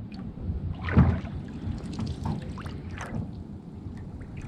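Water splashing in a rowboat that is partly full of water, a few short splashes about two seconds apart over a low steady rumble.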